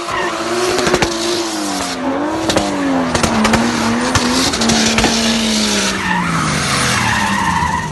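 Drift car's engine revving hard as its rear tyres squeal and spin in a slide, the engine note wavering and then falling away over the last couple of seconds, with scattered sharp crackles.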